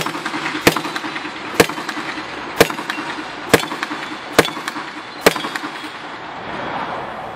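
Seven gunshots fired one at a time at a steady pace, about a second apart, each a sharp crack, as a shooter works through targets on a shooting course.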